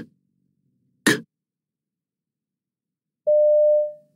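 The consonant /k/ said on its own, a short breathy click, twice about a second apart. Then, about three seconds in, a steady electronic beep that lasts under a second and fades out.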